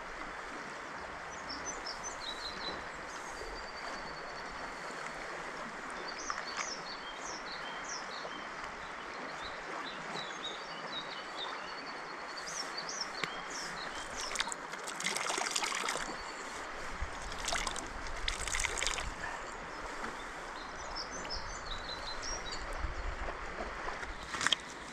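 Shallow river running over stones, a steady rushing babble, with birds chirping now and then. Two brief louder rushes come about fifteen and eighteen seconds in.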